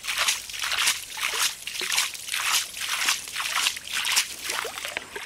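A hand scooping and splashing water out of a small pit dug in wet riverbank sand, in quick repeated strokes about twice a second. He is throwing out the first muddy water so that clean water filtered through the sand can seep in.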